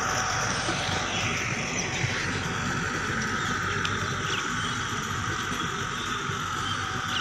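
A distant farm tractor's engine running steadily as it tills the field.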